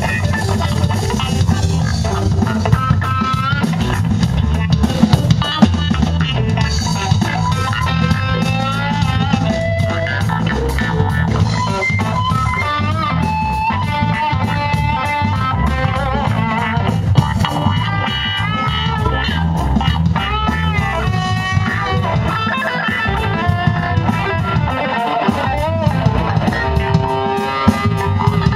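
Live funk fusion band playing an instrumental passage: a guitar carries a bending, wavering lead over electric bass and a drum kit.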